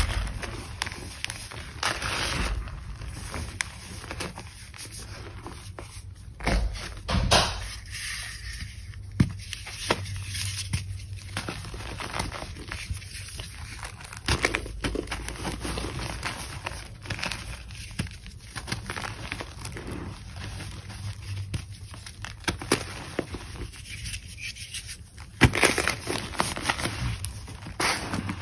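Hands crushing and crumbling blocks of reformed gym chalk and rubbing through the loose chalk powder: irregular soft crunching and powdery rubbing, with a few sharper, louder crunches about a quarter of the way through and again near the end.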